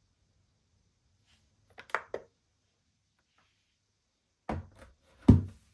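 Knocks and clunks from a CPAP machine being handled on a wooden desk: a pair of light knocks about two seconds in, then a louder thunk near the end.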